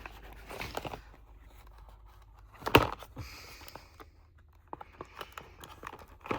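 A product box being opened by hand: packaging rustling and scraping, with one sharp knock or snap a little under three seconds in.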